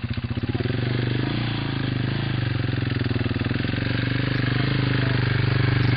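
Off-road enduro motorcycle engine running under load as the bike climbs a steep, rooty trail: pulsing at low revs at first, then steadier and a little louder from about a second in.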